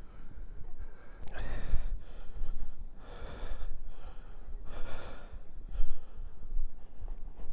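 A person breathing heavily close to the microphone: three loud, breathy gasps or exhalations about a second and a half apart, over a steady low rumble.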